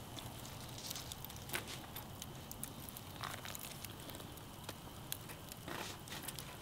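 Faint crackling from a charcoal grill: a low, even hiss scattered with small pops and ticks, a couple of them a little louder.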